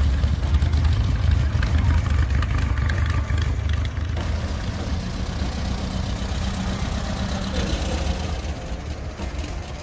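Dune buggy's engine running as the buggy rolls slowly past, a low rumble that is loudest in the first few seconds and eases off gradually.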